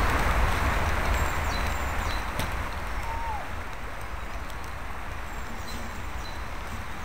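Wind rumbling on the microphone, stronger in the first two seconds and then easing, with faint high bird chirps.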